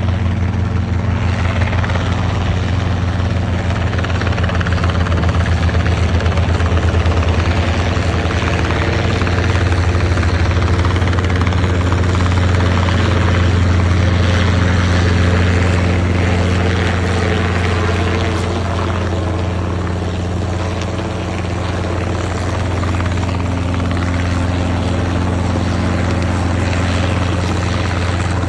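Helicopter hovering close to the ground, its rotor and engine running steadily. A fast rotor beat is most distinct in the first several seconds.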